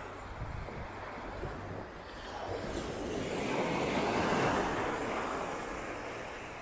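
Small sea wave breaking and washing up the sand, a rush that swells to a peak about halfway through and fades away.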